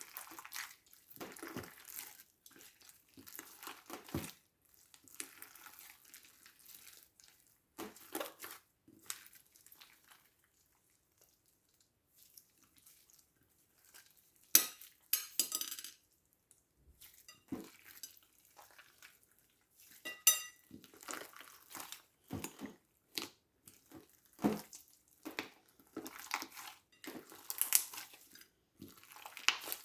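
Slime being squished and pressed by hand: irregular sticky crackles, pops and clicks, pausing briefly near the middle, with a couple of sharper clicks in the second half.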